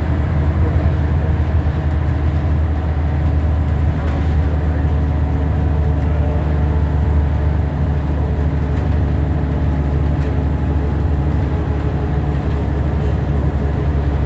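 Scania single-decker bus under way, heard from inside the passenger cabin: a steady, loud engine and road drone.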